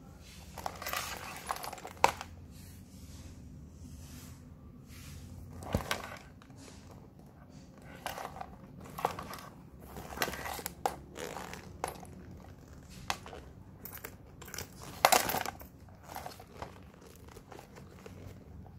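A white leather Coach handbag being handled: the leather rustles and creaks as it is moved, and the metal clasps, chain and buckle hardware clink. Irregular sharp clicks and knocks sound now and then, the loudest a little after two seconds, about six seconds in and late on.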